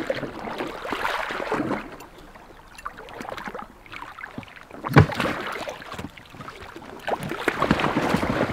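Water splashing and sloshing beside an inflatable boat, with a single sharp knock about five seconds in.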